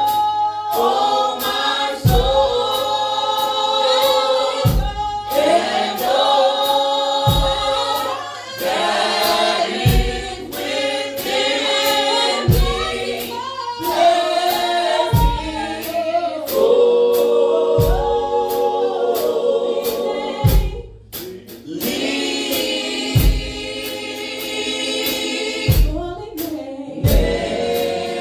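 Gospel choir singing with a live band, a deep drum hit landing about every two and a half seconds under cymbal ticks; the music thins out briefly about three-quarters of the way through.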